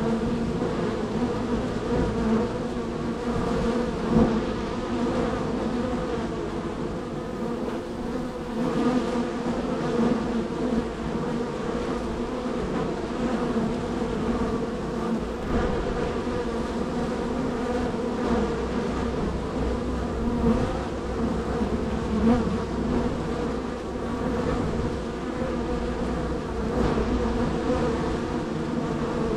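Honey bees buzzing in a steady, dense hum at a busy hive entrance, with individual bees' wingbeats rising and fading as they fly in and out close by.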